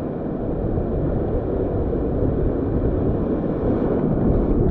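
Wind rumbling on the microphone over shallow surf washing around the wading angler, a steady noisy rush.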